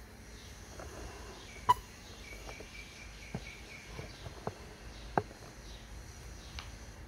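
A handful of sharp taps and knocks, the loudest about a second and a half in and another strong one about five seconds in, over faint high chirping in the background.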